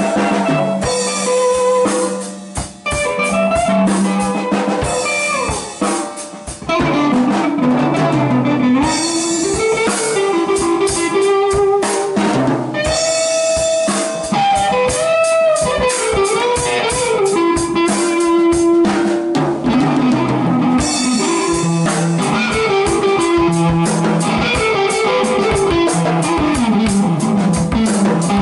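Heavy blues jam on electric guitar and drum kit: the guitar plays a lead line that bends and slides in pitch over steady drumming with cymbals.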